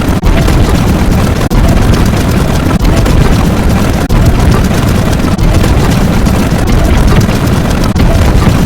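Very loud, heavily distorted sound effect: a dense wall of noise with short dips about every second and a half.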